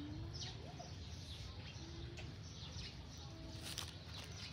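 Small birds chirping, short falling calls repeated every second or so, over a steady low rumble.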